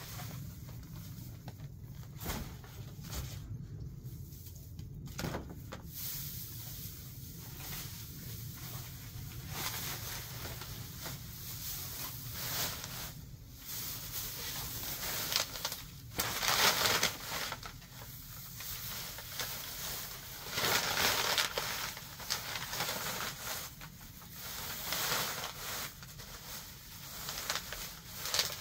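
Dry grass and weeds rustling and crackling as they are pulled up by hand and stuffed into a plastic bag, in irregular bursts, the loudest in the second half.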